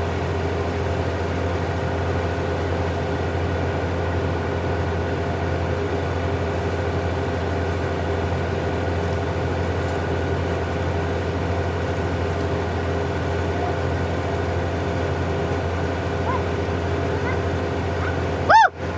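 Heavy diesel engine of earthmoving machinery running at a steady speed, a constant low drone with a steady hum above it, cutting off abruptly near the end.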